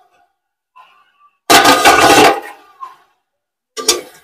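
Steel plate lid and slotted ladle clattering against a steel kadhai. There is a loud metallic clatter with some ringing about a second and a half in, lasting under a second, and a shorter clank near the end.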